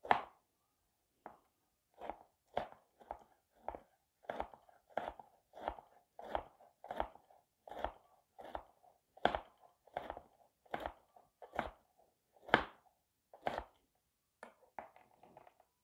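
Kitchen knife slicing through a tomato and knocking on a chopping board, a steady series of strokes about one and a half a second, with a quicker flurry of cuts near the end.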